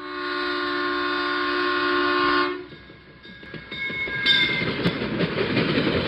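Locomotive air horn sounding one long, steady chord for about two and a half seconds, then stopping; after it comes the rumble of a moving train, growing louder, with a fainter horn tone over it.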